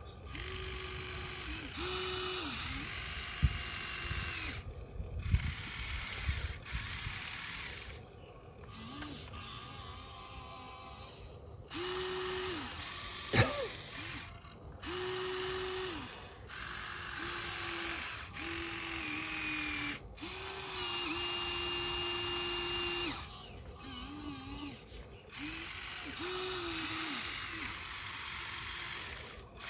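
Huina 1593 RC excavator's small electric motors and gearboxes whining in a series of short runs of one to three seconds each, as the boom, arm and bucket move. A few sharp knocks come in between.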